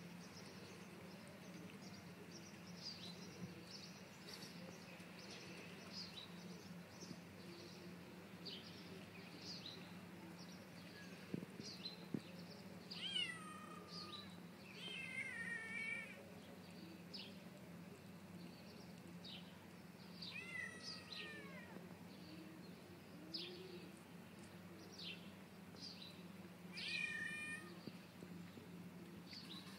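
Cat meowing: four long meows that fall in pitch, two close together a little before halfway, one about two-thirds of the way in and one near the end, over a steady low hum.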